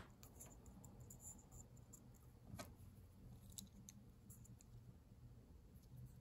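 Near silence with a few faint light clicks and taps of the aluminum fountain pen's barrel and grip section being handled in the fingers, one a little louder about two and a half seconds in.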